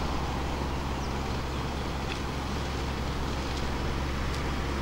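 Steady low rumble of road traffic, with a constant low hum under it and a few faint high ticks.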